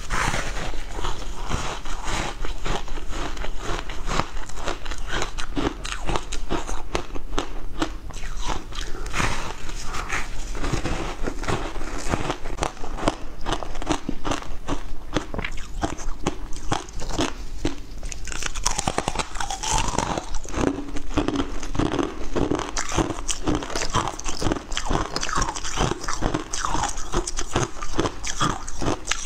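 Chunks of frozen passion fruit ice being bitten and chewed: dense, steady crunching and crackling, close to the microphone.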